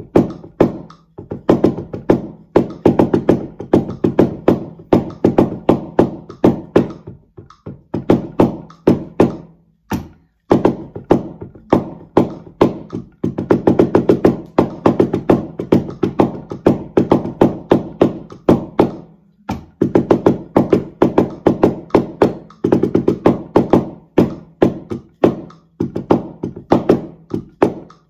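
Taiko drumming with wooden bachi sticks: the shime part of a call-and-response piece at 100 bpm, played as fast runs of strikes in phrases with short breaks, about a second in, near the middle and past two-thirds.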